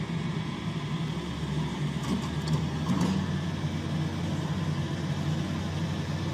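Diesel engine of heavy earth-moving machinery running at a steady low drone, with a few faint clicks about two to three seconds in.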